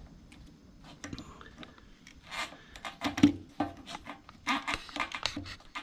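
Hands working a fuel line onto the fitting of a Harley fuel pump assembly: rubbing with a run of small, irregular clicks and knocks, the sharpest about three seconds in.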